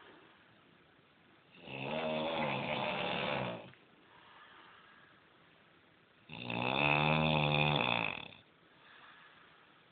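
A man snoring: two long snores about four and a half seconds apart, each lasting about two seconds, the second louder.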